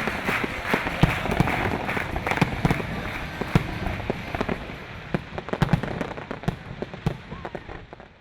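An audience applauding, a dense patter of claps that thins out and fades away near the end, leaving scattered single claps.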